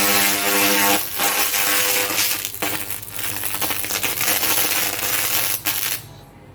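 1000 W laser cleaning machine ablating a metal surface: a loud, dense crackling hiss with a buzzing tone for about the first second, cutting off abruptly about six seconds in.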